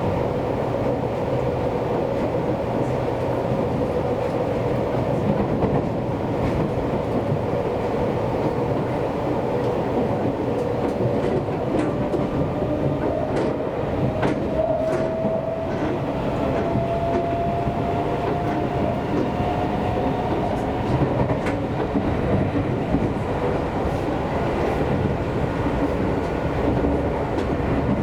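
Seibu Railway electric commuter train running, heard from inside the car: a steady rumble of wheels on rail with scattered clicks. A faint tone slowly rises in pitch from about halfway through.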